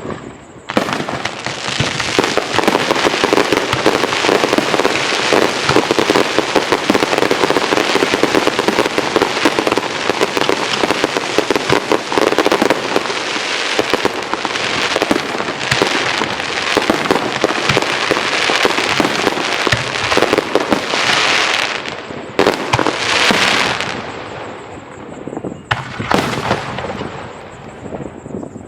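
Fireworks display: a dense barrage of aerial shells, rapid bangs and crackling packed close together, which thins out after about twenty seconds to a few hissing bursts and separate bangs.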